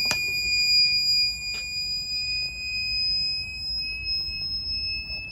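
Electronic alarm buzzer giving one continuous high beep that creeps slightly up in pitch, with a couple of sharp clicks near the start.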